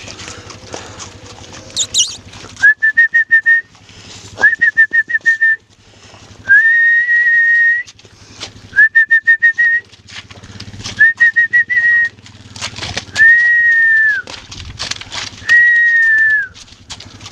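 Whistling on one steady high note, repeated seven times: some goes as rapid runs of five or six short pips, others as single held notes about a second long, with the last two both held. Scattered light clicks and thuds of hooves in the mud sound underneath.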